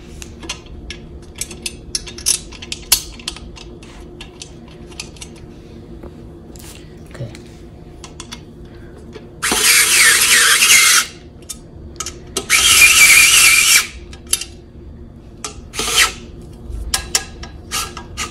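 Small handheld electric screwdriver whirring in short bursts as it drives a screw into the steel base frame: three bursts of one to two seconds starting about halfway through, and another right at the end. Before that, light clicks and taps of the screw and metal parts being handled.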